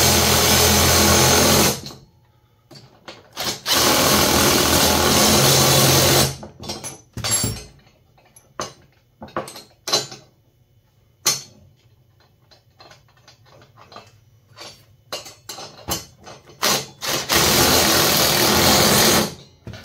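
Cordless driver with a socket extension running down nuts on the bolts of a steel bracket in three runs of about two and a half seconds each: at the start, about four seconds in, and near the end. Between the runs come scattered clicks and clinks of metal parts and hardware being handled.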